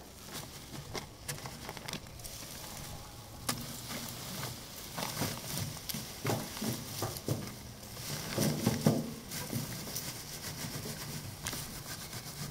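Dried amaranth seed heads and stalks rubbed and pulled by hand over a wire-mesh screen, threshing out the seed: dry rustling and irregular crackling of stems, leaves and seed heads against the mesh and plastic tarp, busiest about two-thirds of the way in.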